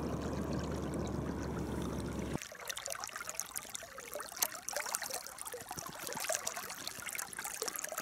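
River water flowing over a riffle: a steady rush for about the first two and a half seconds, which cuts off abruptly, then quieter trickling and lapping with small scattered splashes.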